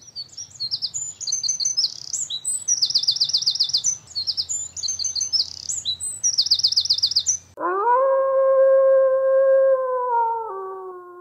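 Songbirds chirping and singing fast trills. About seven and a half seconds in, the birdsong cuts off and one long held note begins; it steps down in pitch once and fades out.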